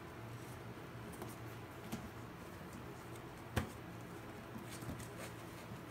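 Puppy's claws clicking and scratching on a plastic toddler slide as it climbs about, with one sharper knock about halfway through, over a steady low hum.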